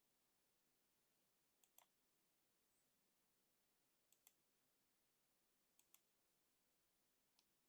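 Faint computer mouse clicks over near silence: three quick double-clicks about two seconds apart, then a single click near the end.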